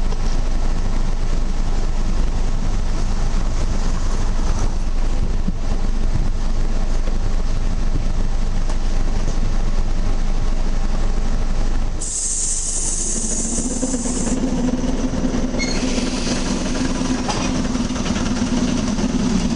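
Commuter train standing with a steady rumble. About twelve seconds in comes a short burst of air hiss, then a steady hum as the train starts to move off.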